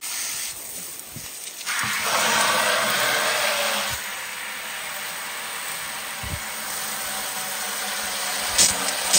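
Garden hose spray nozzle jetting a stream of water into a plastic bucket partly full of water: a steady hiss and splash that starts suddenly and gets louder about two seconds in, with a couple of sharp knocks near the end.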